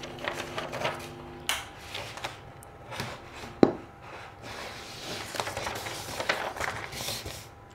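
Handling noise: paper and wired circuit boards being shifted around on a tabletop, rustling and scraping, with a sharp click about three and a half seconds in. A faint steady hum sounds for the first second and a half.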